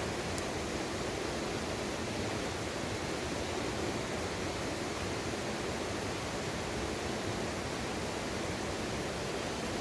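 Steady rush of a mountain valley stream flowing over rocks, an even, unbroken water noise.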